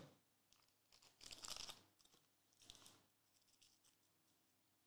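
Faint crinkling and rustling of plastic as trading cards in sleeves and holders are handled. A sharp click comes at the start, the loudest rustle about a second and a half in, a shorter one near three seconds, and then a few small ticks.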